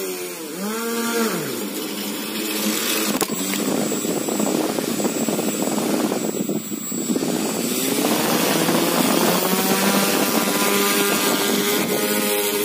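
Propeller-driven brushless DC motors of a home-made wire-riding model air train running: a motor buzz whose pitch swoops down and back up about a second in, then climbs steadily over the last few seconds as the motors speed up.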